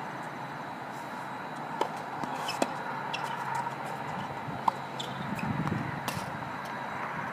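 Tennis ball being struck by rackets and bouncing on a hard court during a rally: a few sharp pops a second or so apart, the sharpest a little before five seconds in, over a steady background hum.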